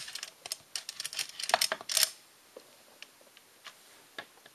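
Lightning Adding Machine, a Pascaline-type adder with spring-driven carries, being dialled by finger: a quick run of sharp metal ratchet clicks for about two seconds as the digit wheels advance and carry into the next place. A few faint scattered clicks follow.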